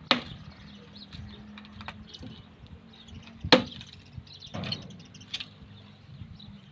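Axe chopping firewood: four sharp, irregularly spaced strikes into wood, the loudest about three and a half seconds in.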